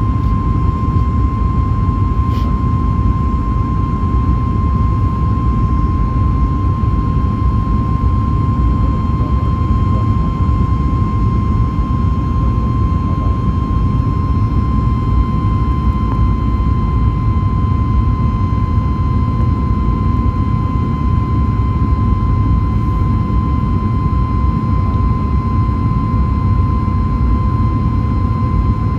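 Boeing 737 MAX 8's CFM LEAP-1B turbofan engines at climb power after takeoff, heard inside the cabin over the wing: a loud, steady rumble with a steady whine on top.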